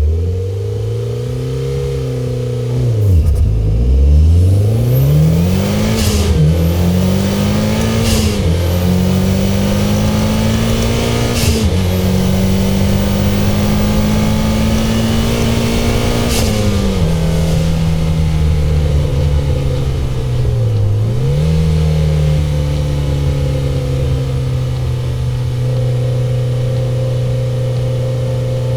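Mitsubishi Lancer Evolution X's turbocharged 2.0-litre inline-four accelerating hard: the pitch climbs, drops sharply and climbs again through several gear changes, with a short sharp noise at each change. It then holds steady revs from about two-thirds of the way in, with one quick dip.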